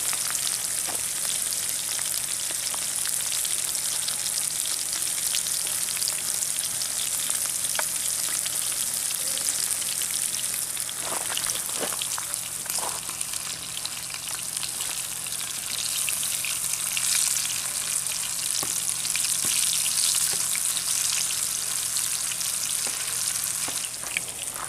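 Battered bluegill fillets frying in hot grease in a pan: a steady sizzle full of small crackles and pops.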